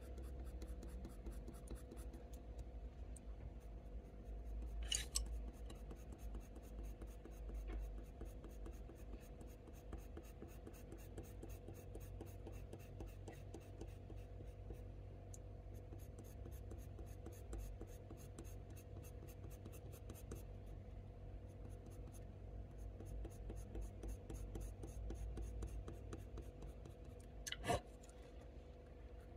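Colour pencil scratching on textured watercolour paper in many quick, short flicking strokes, faint throughout. Two louder brief taps stand out, one about five seconds in and one near the end.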